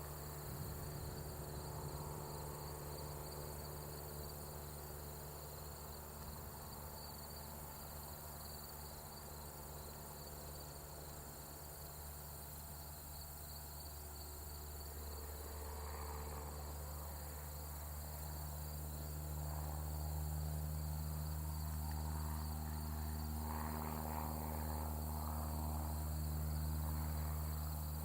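Crickets chirping steadily over the low drone of a light aircraft engine. The drone grows louder in the second half.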